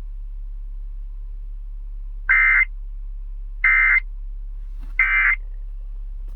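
Emergency Alert System end-of-message data tones: three short, loud bursts of buzzy, warbling SAME digital data, each about a third of a second long and a little over a second apart. They mark the end of the alert.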